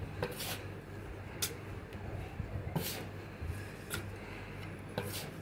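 A metal dough scraper scraping and tapping against a stone counter as it cuts water into flour to bring the dough together: a few short, separate strokes about a second apart, over a low steady hum.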